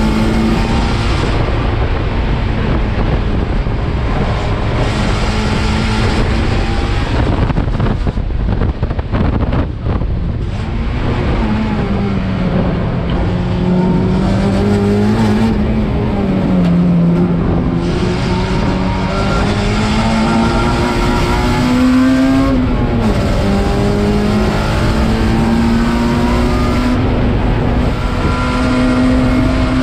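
Race car engine running hard on track, its pitch rising and falling with throttle and gear changes over heavy road and wind noise. The engine note briefly falls away about eight seconds in, then picks up again.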